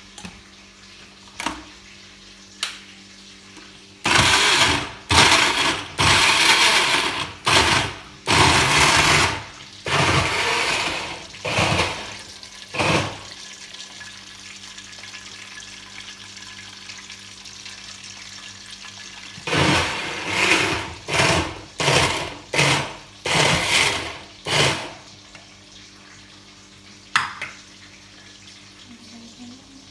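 Countertop blender pulsed in short bursts, each about a second long, in two runs several seconds apart, as it blends a mango and avocado milkshake. A faint steady hum runs underneath.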